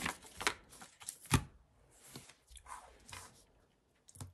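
Paper sticker sheets being handled on a desk: short rustles and light taps, with one sharp knock about a second and a half in.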